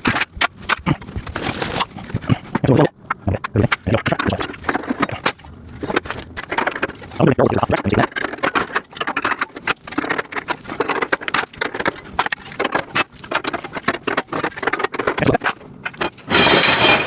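Metal parts of a storage rack being handled and fitted during assembly: irregular clicks, clinks and scrapes, with a louder rattling clatter near the end.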